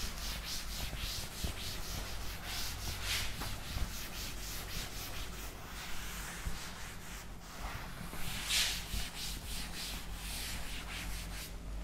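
Chalkboard duster rubbing across a chalkboard in repeated back-and-forth strokes, wiping off chalk writing.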